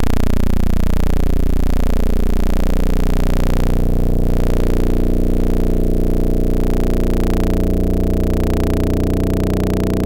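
Synthesized spaceship ambience: a loud, steady low drone made of several layered hum tones, with slowly sweeping, phasing overtones and a hiss on top.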